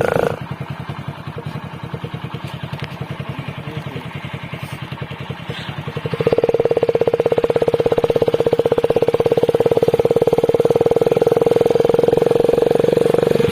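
Hero Splendor Plus's single-cylinder four-stroke engine running through an exhaust modified with a can to sound like a KTM, with a fast, even pulse. It drops back just after the start, runs lower for about six seconds, then abruptly gets louder as the throttle opens and holds steady there.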